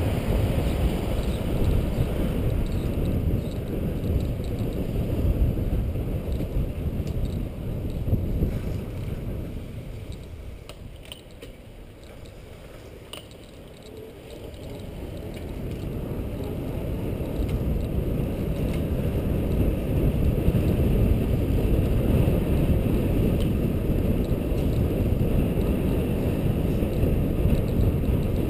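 Wind rumbling over a bicycle rider's helmet-camera microphone while riding, dying down about ten seconds in as the bike slows for a turn, when a few faint clicks come through, then building back up as it picks up speed.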